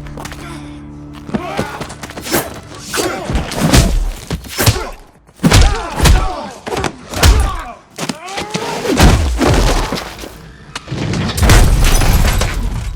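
Fight-scene sound effects: a fast series of punch and body-hit impacts, with swishes and grunts between them, over a film music score.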